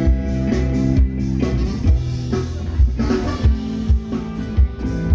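Live band playing: drum kit keeping a steady beat, about two hits a second, under guitar.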